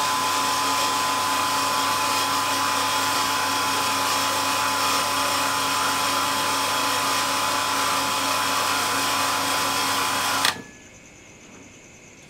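Electric water pump motor running with a steady hum and whine, then cutting off abruptly about ten and a half seconds in, leaving faint room hiss.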